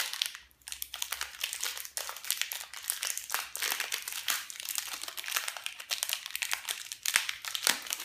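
Aluminium foil wrapper around a roll of hookah charcoal discs being twisted and torn open by hand, crinkling and crackling throughout with sharp snaps.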